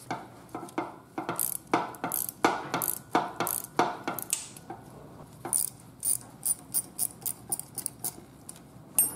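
Small socket ratchet clicking as it backs out the 8 mm cross-pin retaining bolt in a Ford 8.8 differential carrier. It makes a steady run of sharp clicks, about three a second, with a short pause about halfway through.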